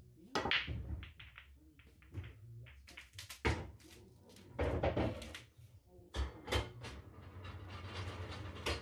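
Break shot on an English pool table: the cue ball smashes into the racked reds and yellows about half a second in, followed by a scattered series of sharp clacks and knocks as the balls collide and bounce off the cushions.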